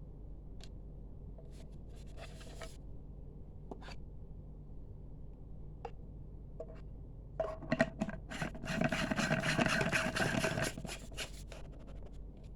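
Handling noises: a few scattered clicks and a brief rub about two seconds in, then several seconds of rubbing and scraping in the second half.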